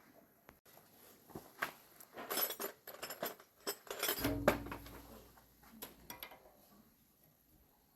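Metal tools and small machine parts clinking and clattering as they are handled, with a heavier knock that rings briefly just after four seconds in.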